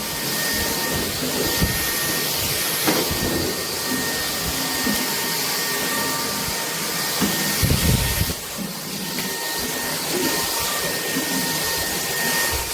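Bulelink cordless stick vacuum running: a steady rushing hiss with a thin, steady whine. A few soft low bumps come through, the loudest about eight seconds in.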